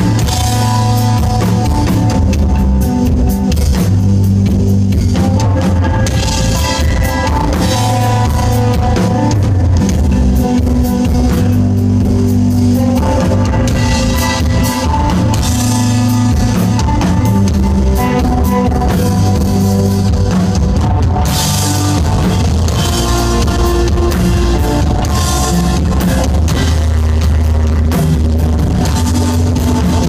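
Live instrumental desert rock played loud by electric guitar, bass guitar and drum kit, with sustained guitar tones over a heavy, steady bass and drums. It is heard from the audience at a club show.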